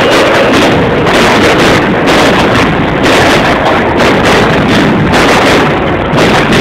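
Fireworks firing at close range: rapid bangs and crackling run together into a loud, unbroken din.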